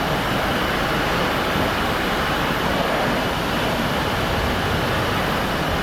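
Pressure washer running, its wand spraying a steady hiss of water onto house siding during the rinse.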